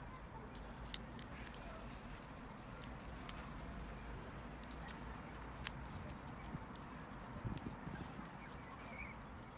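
Small, sharp clicks and taps of hand tools and plastic laptop parts being worked apart, scattered irregularly over a steady low hum.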